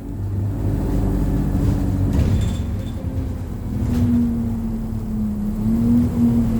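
ADL Enviro200 single-deck bus engine and drivetrain running while the bus is driven, heard from inside the passenger cabin; the engine note climbs about four seconds in as the bus pulls harder.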